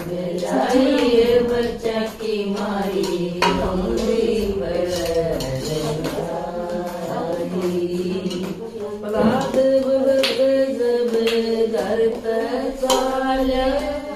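Group of women singing a Haryanvi bhajan (devotional hymn) together, unaccompanied, with a few hand claps.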